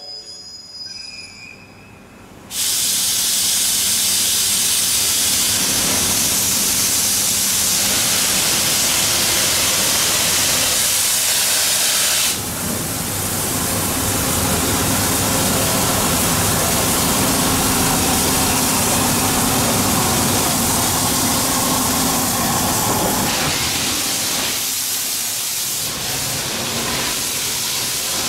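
Steam locomotive C61 20 hissing steam, starting suddenly and loudly about two and a half seconds in and continuing steadily as the locomotive pulls slowly away.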